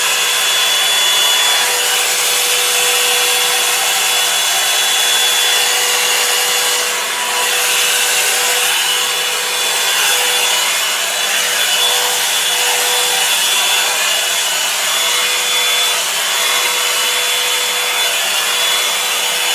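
Revlon hot-air brush dryer running steadily: a loud rush of air over a constant low hum and a faint high whine from its blower motor.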